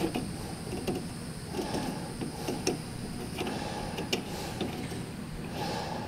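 Light metallic clicks and short scraping as a thread-cleaning tool is turned by hand in a brake caliper's bleeder-screw hole, clearing debris from the threads. A handful of sharp clicks stand out over a steady low hum.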